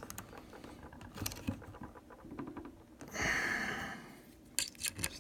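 Small metal rifle parts being handled during reassembly: faint scratching and light clicks, with a longer rasping scrape about three seconds in and a few sharp clicks near the end.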